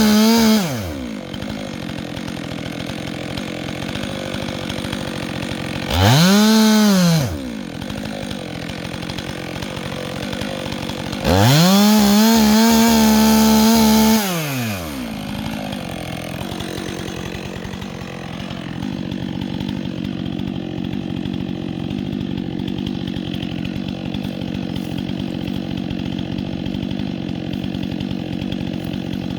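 Chainsaw idling and being revved to full throttle three times, the pitch rising and falling each time: one rev ending about a second in, a short one around six seconds, and a longer one of about three seconds near the middle. It idles for the rest.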